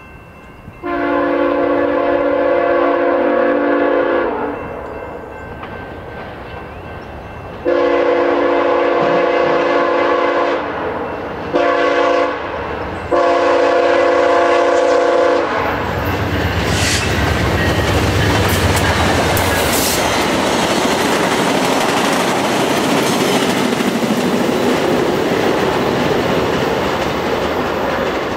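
VIA Rail P42DC diesel locomotive's multi-chime horn sounding the long-long-short-long grade crossing signal as the train approaches. The locomotive and four passenger coaches then rush past at speed, the engine's low drone giving way to the rumble and clatter of wheels on rails.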